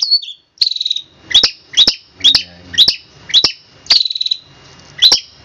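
Long-tailed shrike (cendet) singing its 'tembakan' (shot) song: sharp, loud, high notes about twice a second, broken twice by a longer harsh, buzzy note.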